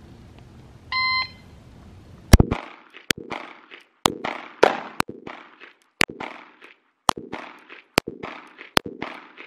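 A shot timer's short electronic start beep, then a Glock 19 9mm pistol fired in a steady timed string of about nine shots, roughly one a second, each shot echoing.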